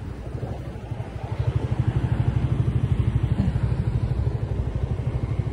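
Suzuki Raider R150's single-cylinder engine and exhaust running at low revs with a rapid, even pulsing beat, getting louder about a second and a half in.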